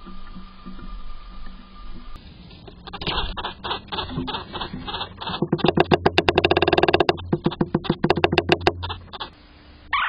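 Male red-bellied woodpecker calling with sharp repeated notes, then drumming a fast roll of knocks on the wooden nest box, picked up close from inside the box. More spaced knocks follow the roll.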